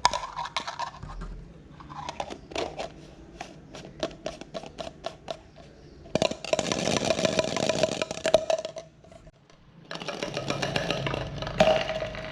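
A kitten's toy clattering inside an empty jar as the kitten bats it about: first a string of separate clicks, about three a second, then two longer spells of fast, dense rattling.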